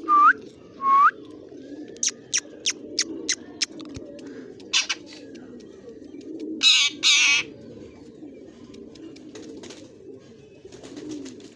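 Pet parrot calling: two short rising whistles, then a quick run of sharp clicks, and about halfway through two loud harsh screeches. Pigeons coo steadily in the background.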